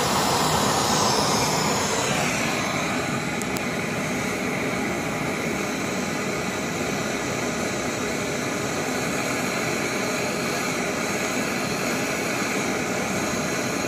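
MSR Pocket Rocket canister stove burning isobutane-propane gas at its fuel setting: a steady roar of the burner flame under a pot of heating water.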